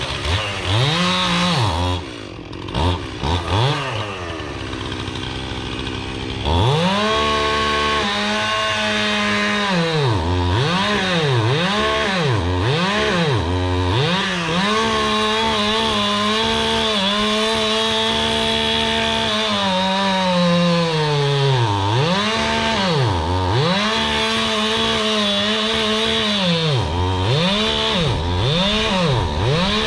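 Two-stroke gasoline chainsaw engine revving: it runs at high revs, and its speed drops and climbs back over and over. Between about 2 and 6 seconds in, it runs quieter with a few short blips before it goes back to steady high revs.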